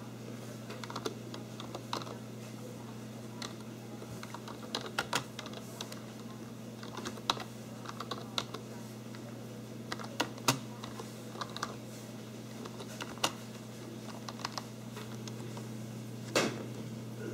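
Typing on a computer keyboard: irregular key clicks, some in quick runs, over a steady low hum, with one louder click near the end.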